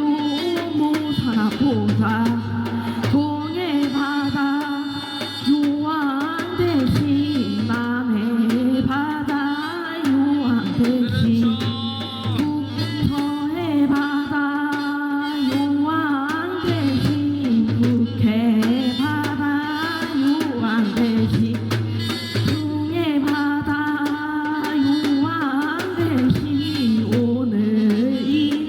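Korean shamanic ritual (gut) music: a wavering, sliding sung melody over drum accompaniment and a steady low drone.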